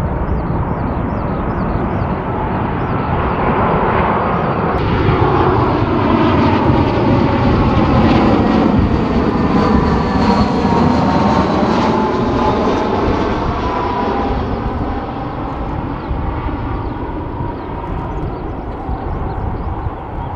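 Jet airliner engines on final approach. After a cut about five seconds in, an Airbus A319 with IAE V2500 engines passes close by. Its steady jet rumble and whine swell to their loudest near the middle, then slowly fade, and the whine falls in pitch as it passes.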